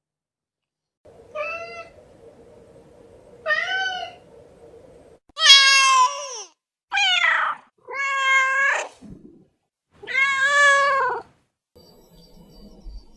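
Domestic cats meowing: about six separate meows with short pauses between them, each call arching up and then down in pitch. The loudest and longest comes about five seconds in.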